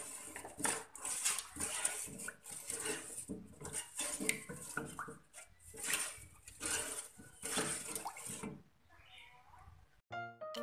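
A wooden spoon stirring a pan of milky liquid in a stainless steel saucepan, scraping and swishing in repeated strokes about one or two a second. The stirring stops about eight and a half seconds in, and a light keyboard tune begins near the end.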